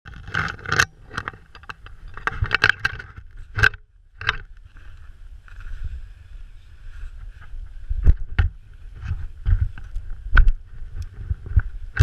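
Close handling noise from someone crawling out through a snow tunnel: snow crunching and jacket fabric rustling against the microphone, with many irregular knocks and bumps.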